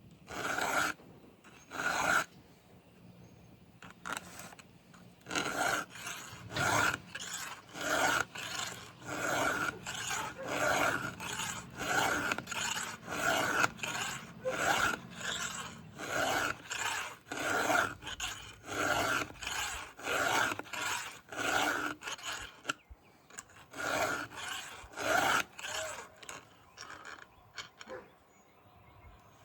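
Round file scraping across the cutters of a Stihl MS 500i chainsaw chain during hand sharpening. It makes a steady run of rasping strokes, a little more than one a second, with a couple of short pauses.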